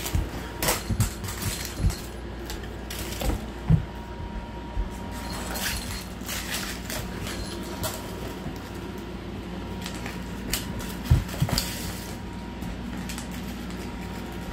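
Irregular knocks, thumps and rustles from a serval pouncing at a wand toy around a nylon pop-up play tunnel on a hard floor, with a faint steady hum underneath.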